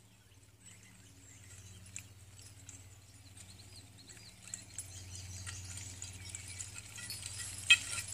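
A team of six harnessed draft horses walking closer, with harness chains and metal fittings jingling and light hoof sounds. The sounds grow louder over the second half, and one sharp clink comes near the end.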